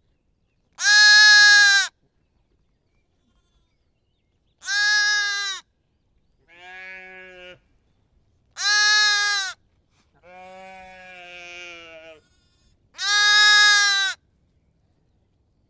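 Lamb bleating: four loud, high bleats about four seconds apart, each about a second long. Two quieter, lower-pitched bleats come between them.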